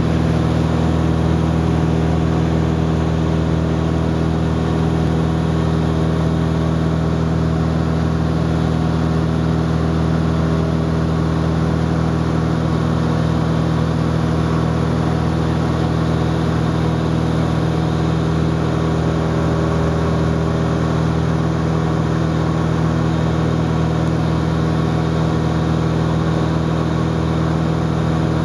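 Steady drone of an airplane's engines heard from inside the passenger cabin: a loud, unchanging low hum with several steady tones over an even rush of air noise.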